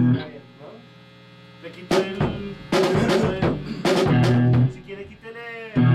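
A band playing: separate drum hits with low bass notes, starting about two seconds in, over a steady mains hum.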